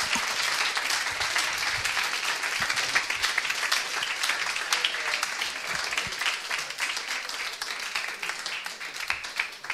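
Audience applauding, many hands clapping in a dense patter that slowly eases off and dies away near the end.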